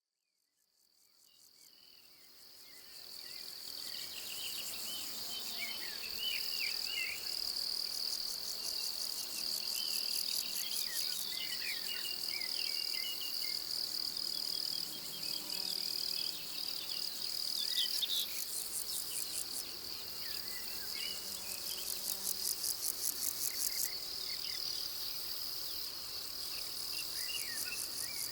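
Summer pasture ambience dominated by insects stridulating: a continuous high chirr with fast pulsing above it. Short bird chirps come and go throughout. It fades in over the first few seconds.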